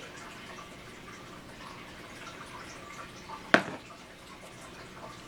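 Quiet handling of small wooden chipboard pieces during gluing and assembly, with one sharp click or tap about three and a half seconds in.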